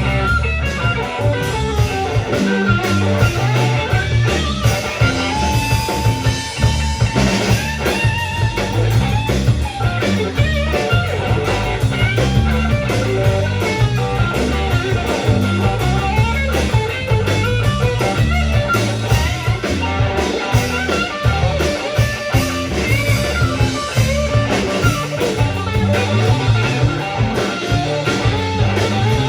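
Live rock band playing an instrumental passage: electric guitar lines over bass and a drum kit, with no singing.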